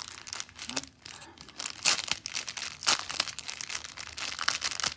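Clear plastic packaging of diamond painting drills crinkling and rustling as it is handled and opened, in irregular sharp crackles, the loudest about two and three seconds in.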